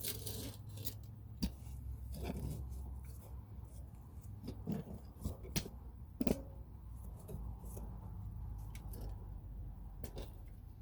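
Scattered light clicks and knocks of hand work on a car's power steering hose and clamps, over a steady low hum.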